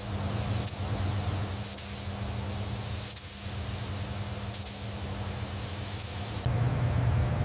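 A steady spraying hiss over the low hum of a running motor. The hiss stops about six and a half seconds in, leaving the motor hum louder.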